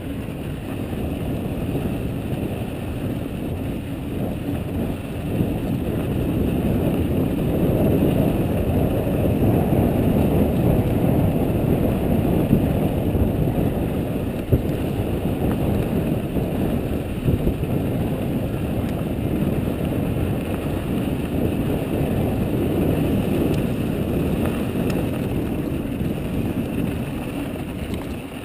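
Wind rushing over the camera microphone and mountain-bike tyres rolling fast over loose dirt and gravel on a descent, with the bike rattling and a few sharp knocks along the way.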